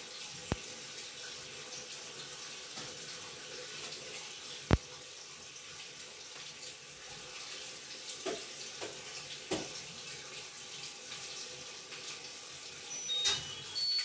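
A steady rushing hiss with a faint hum under it. A sharp click comes about half a second in and a louder one nearly five seconds in, then a few knocks, and a cluster of clinks and knocks near the end.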